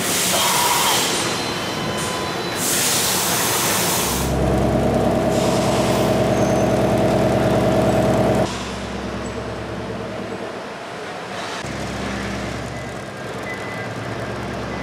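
Mazak HCN-4000 horizontal machining center at work: bursts of hiss in the first few seconds, then a 100 mm face mill cutting C45 carbon steel at 573 rpm and 4 mm depth of cut. The cutting gives a loud, steady pitched hum that cuts off suddenly about 8.5 seconds in, followed by a lower, rougher steady cutting noise.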